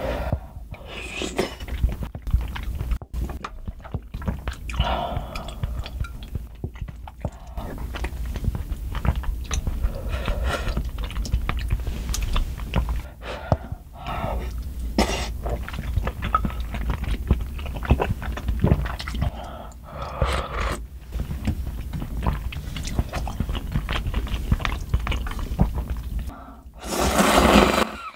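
Close-miked eating sounds: slurping spicy soup noodles and chewing, with many small clicks and taps of utensils. Near the end comes a loud slurp of broth from a bowl, lasting about a second.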